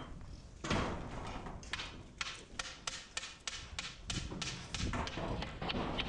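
Irregular clatter and knocks of a flock of horned black-faced sheep being driven through metal hurdle pens on a shed floor, with a heavier thump about a second in.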